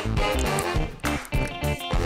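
Instrumental background music with pitched notes over a regular bass line.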